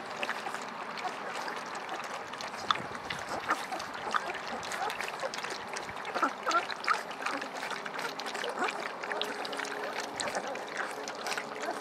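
Several vizsla puppies lapping and slurping soaked kibble mush from a stainless steel pan, an irregular run of quick wet smacks and clicks.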